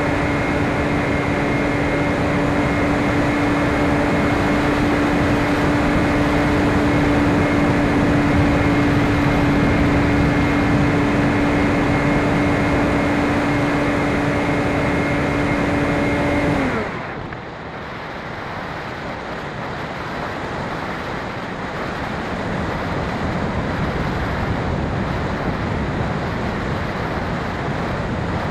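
Onboard sound of a Phoenix 2400 RC motor glider: its electric motor and propeller whine steadily over rushing air. About two-thirds of the way through the motor is cut and spins down. Only the air rush of the glide is left, and it grows gradually louder.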